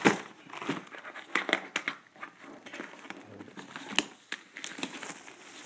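Clear plastic shrink-wrap on a cardboard snack-cake box crinkling and crackling as the box is handled, with irregular sharp crackles, the loudest just at the start and again about four seconds in.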